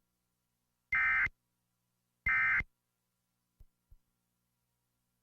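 EAS end-of-message data bursts: two short, buzzy digital tone bursts about a second apart, the last two of the three-burst code that closes an Emergency Alert System warning. Two faint clicks follow.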